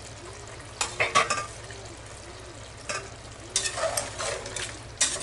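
A steel spoon stirring thick mutton stew in an aluminium pot, scraping and clinking against the pot in short bouts.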